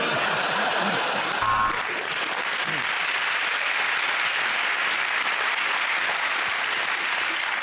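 Studio audience laughing and applauding, a sudden steady wave of clapping that starts at once and holds through.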